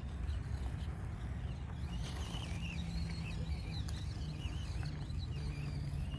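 Axial SCX24 Deadbolt micro RC crawler running, its small electric motor and gears giving a faint wavering whine as it crawls, over a low steady rumble.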